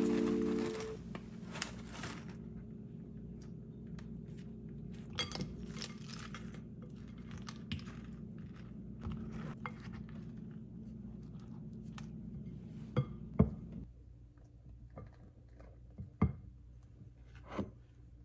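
A spatula folding and scraping thick pudding cream in a glass mixing bowl, soft and faint, with a few sharp clinks of the spatula knocking against the glass about two-thirds of the way through and again near the end.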